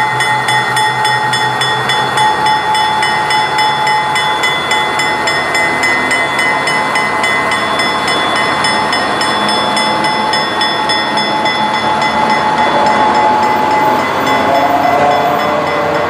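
East Broad Top diesel locomotive M7 rolling slowly past with its engine running and a steady whine, pulling wooden passenger coaches. Near the end the coaches' wheels roll by with a wavering squeal.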